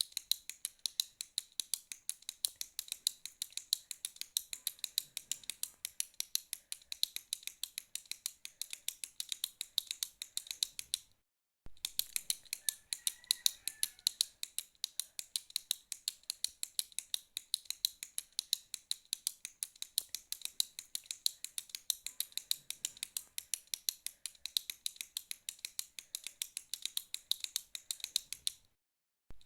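Retractable ballpoint pen clicking over and over, a rapid run of sharp plastic clicks several a second. The clicking breaks off for about half a second twice, once about 11 seconds in and once near the end.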